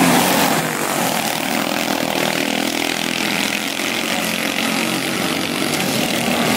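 Quarter midget race cars' small single-cylinder engines buzzing at racing speed. One car passes close at the start and fades, and the sound grows again near the end as the cars come back around the turn.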